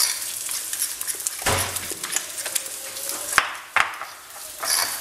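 Diced calabresa sausage sizzling in hot fat in a frying pan, with scattered clicks and knocks of kitchenware, two sharp ones a little past the middle.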